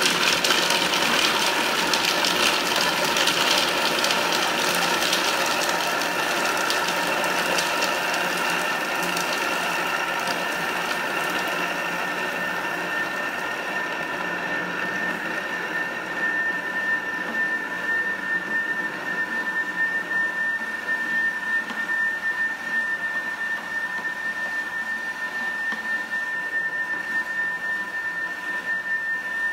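Thermomix TM5 motor running at speed 5, its blade grinding frozen fruit pieces into sorbet. It starts suddenly, harsh and crunchy at first, then grows smoother, with a steady whine that gets stronger about halfway through.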